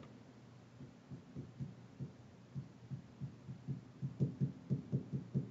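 Dry-erase marker writing on a whiteboard: a series of faint, short taps and strokes, sparse at first and coming faster from about four seconds in.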